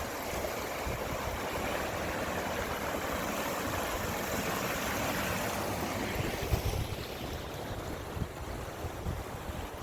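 Steady rush of the Acushnet River's flowing water. About two thirds of the way in it grows quieter and low buffets of wind on the microphone come through.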